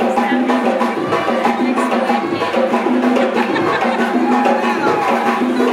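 A live band playing amplified music through PA speakers, with a steady beat and a repeating bass line.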